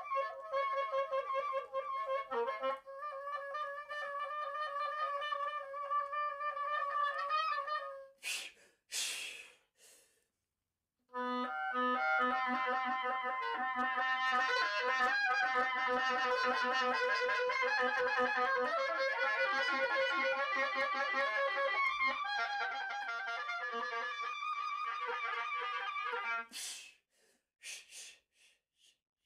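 Solo oboe playing a long held note, then a pause with audible breaths, then a busier passage of shifting notes. More breaths follow near the end as the phrase stops.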